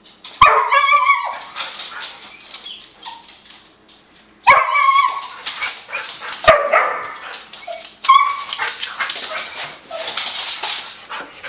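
Two excited dogs, a Weimaraner and a tan short-haired dog, barking and yipping in four sharp outbursts, with a busy patter of clicks and scuffles in between. They are worked up while their food is being got ready.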